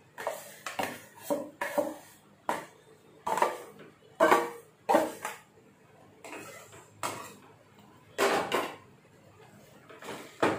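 A spatula scraping and knocking against a steel bowl as boiled potato is emptied into a pan: about a dozen irregular clinks and scrapes. Near the end a potato masher starts working the boiled vegetables in the pan.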